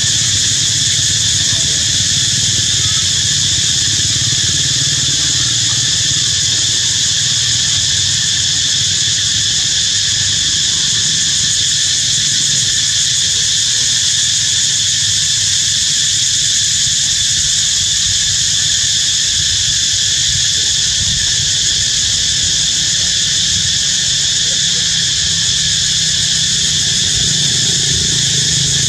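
Steady, high-pitched buzzing of an insect chorus over a low, even rumble, unchanging throughout.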